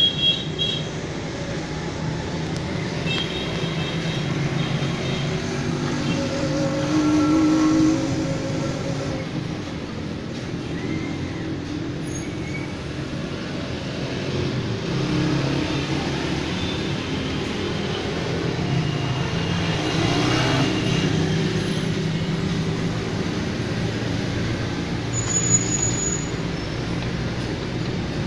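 A steady din of road traffic.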